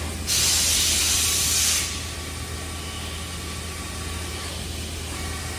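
Mazak Nexus 510C vertical machining center's spindle running at 2000 RPM, a steady machine hum with a faint whine. A loud hiss starts just after the beginning, lasts about a second and a half, then stops.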